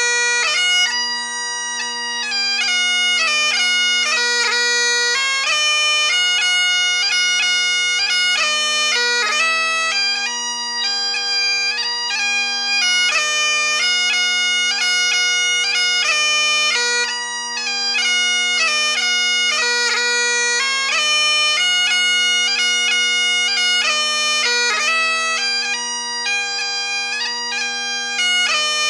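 Great Highland bagpipe playing a 6/8 march tune: the chanter melody moves through quick notes with rapid grace-note flicks, over the steady, unbroken drones.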